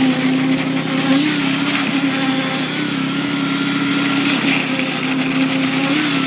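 Machinery engine on a concrete pour running steadily, a continuous drone that wavers slightly in pitch.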